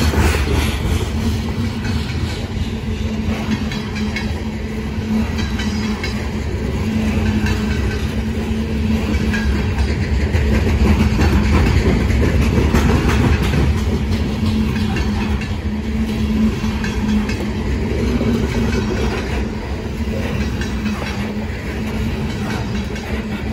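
Loaded coal hopper cars of a freight train rolling past, a steady rumble of steel wheels on rail with a continual clatter of clicks.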